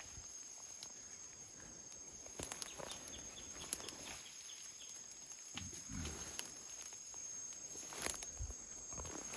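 Steady high insect chirring of the rainforest, with scattered clicks, rustles and a few soft thuds like footsteps on the forest floor.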